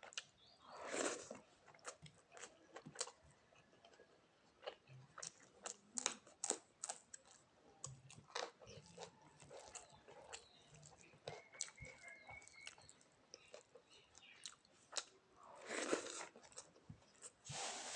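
Close-miked chewing and mouth sounds of a person eating rice with fish and fried vegetables: frequent short, sharp wet clicks and smacks, with two longer, louder swells about a second in and near the end.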